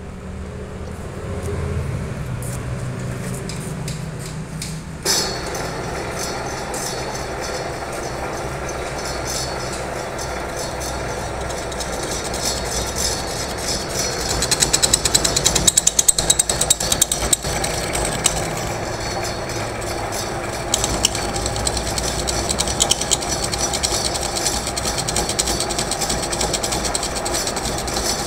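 Metal lathe running with a steel shaft turning in it, its gearing and motor whirring. About five seconds in the sound suddenly gets louder and brighter, and around the middle there is a stretch of fast rattling clatter.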